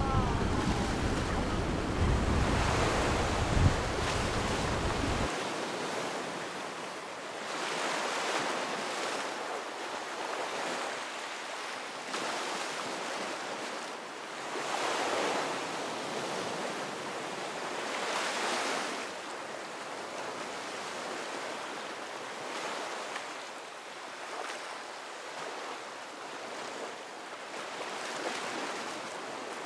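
Ocean surf: waves breaking and washing up the shore, swelling and fading every few seconds. Wind buffets the microphone with a low rumble for the first few seconds, then stops abruptly.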